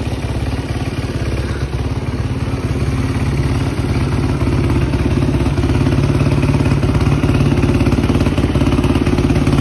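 2006 Yamaha YZ450F's single-cylinder four-stroke engine idling steadily, getting a little louder from about halfway through.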